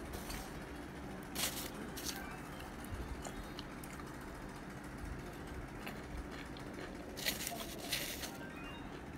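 Cardboard box of baked cornstarch chunks being handled: a few brief scraping rustles as the chunks shift against the cardboard, two about a second and a half to two seconds in and two more near the end.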